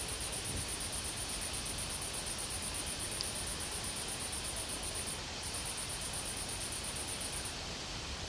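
An insect's high-pitched, rapid pulsing trill that pauses briefly about five seconds in and stops near the end, over a steady hiss.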